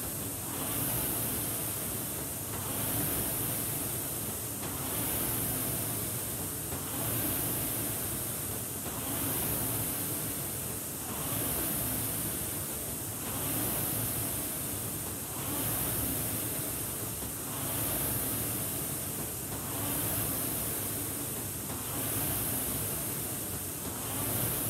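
Concept2 indoor rower's fan flywheel whooshing with each stroke, swelling and fading about once every two seconds at a steady, easy warm-up pace.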